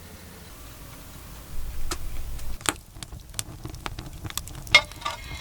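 Firewood burning in a Russian stove: irregular sharp crackles and pops, starting about a second and a half in.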